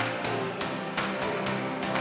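Background music with a steady beat: a strong hit about once a second over held low tones.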